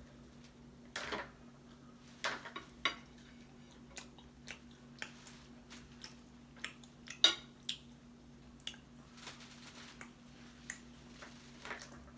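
Scattered light clinks and taps of dishes and cutlery while eating, the loudest about seven seconds in, over a faint steady hum.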